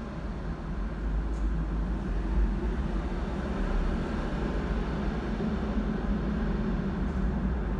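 Steady low vehicle rumble heard from inside a car, with a faint hum that holds its pitch.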